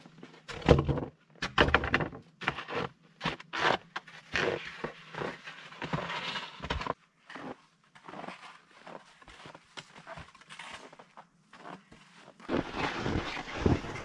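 Footsteps crunching in snow and wide forest skis shuffling and sliding over it: an uneven run of short crunches with brief gaps, and a longer stretch of swishing about halfway.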